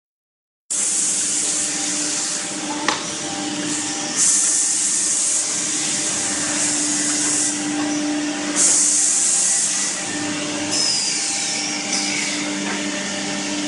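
CNC side-drilling machine running: a steady motor hum under a high-pitched hiss that cuts in and out several times, with a sharp click about three seconds in and a short falling whine later on.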